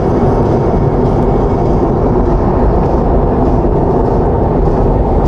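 Steady, loud rumble of a car on the move, with road and wind noise filling the microphone.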